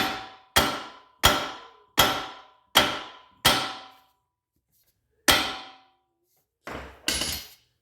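Hammer blows on metal: six evenly spaced strikes, each ringing briefly, then a pause and three more near the end.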